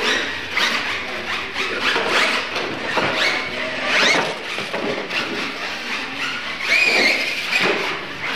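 Losi LMT electric RC monster trucks racing on a concrete floor: their brushless motors give high-pitched whines that rise and fall again and again with the throttle, mixed with squeals from the tyres and drivetrain.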